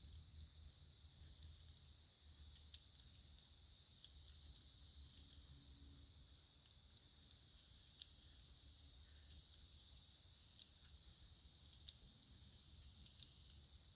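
Steady chorus of insects, a continuous high-pitched shrilling, with a few faint short ticks or chirps here and there and a low rumble underneath.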